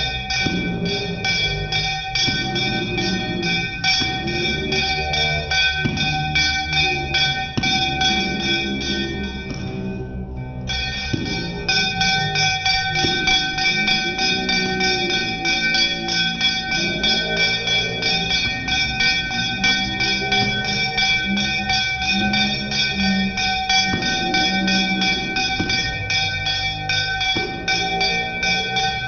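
A bell rung rapidly and without a break for aarti, a fast even ringing, over people singing the aarti hymn; the bell stops for about half a second some ten seconds in, then carries on.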